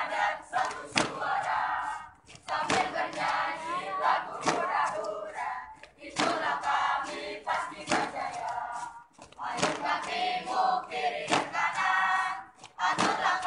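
A group of marchers chanting and shouting in unison as they march, in short phrases, with a sharp impact on the beat about every second and three quarters.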